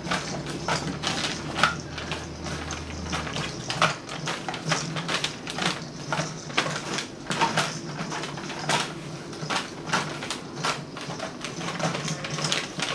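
Irregular clicking and rustling as kittens scamper on a hardwood floor and bat a paper bag toy about.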